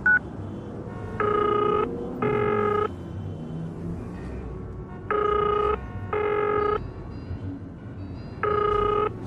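Telephone ringing in a double-ring pattern: three pairs of rings, each pair about three seconds apart. A short beep sounds right at the start.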